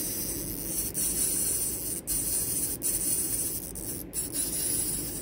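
Fishing reel being wound against a heavy, hard-pulling carp: a steady scratchy hiss with a sharp click about once a second.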